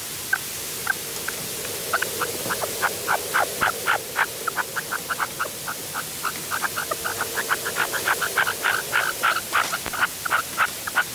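Red-legged partridge calling: a long run of short, sharp notes, only a few at first, then several a second and densest toward the end.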